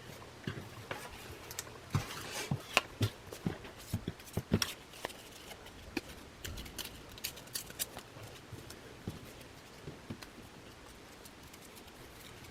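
Paper and thin card being handled at close range: a run of sharp crackles and clicks, dense for the first five seconds and sparser after.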